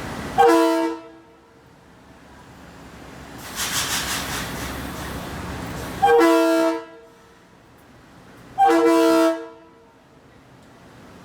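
Long Island Rail Road M3 electric train sounding its multi-tone horn: three short blasts, the first near the start and the other two about six and eight and a half seconds in. A rush of hiss rises and fades between the first and second blasts.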